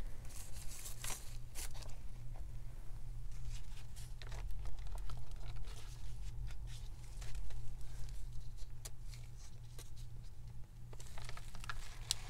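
Paper and a plastic stencil being handled on a table: scattered light rustles and ticks, with a few brief hissy bursts in the first couple of seconds, over a steady low hum.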